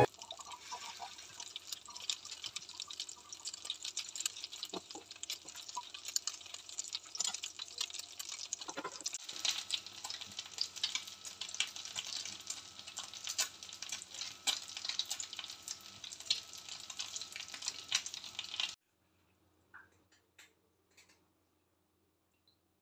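Brik pastry parcel shallow-frying in sunflower oil in a pan: a steady sizzle thick with small crackling pops. It cuts off sharply about three-quarters of the way through, leaving near silence.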